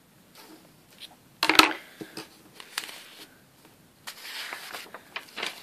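Light handling noises from a comb and a sheet of paper: one sharp knock about a second and a half in, a few faint clicks, and a soft rustle near the end.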